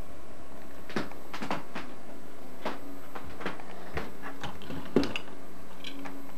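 Handling noise on a camcorder: about a dozen irregular clicks and knocks, the sharpest about five seconds in, over a steady low hum.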